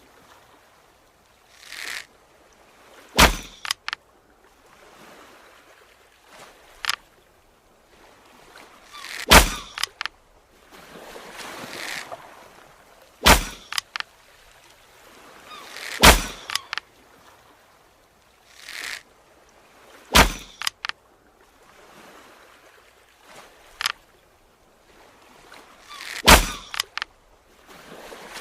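Bow and arrow shots repeated: about six sharp cracks a few seconds apart, most with a short whooshing hiss just before, and faint clicks after some.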